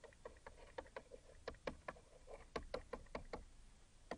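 Stylus tapping and scratching on a writing tablet as words are handwritten: a quick, irregular run of faint clicks, a little louder and denser in the middle.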